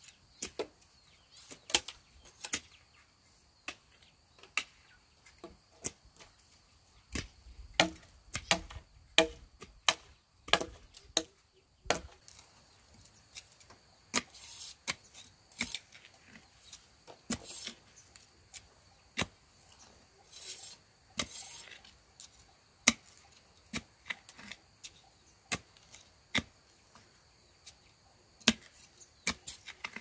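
A hand tool striking wood: irregular sharp knocks and chops, often one to three a second, with a cluster of louder strokes about eight to twelve seconds in and a few longer scraping strokes after that.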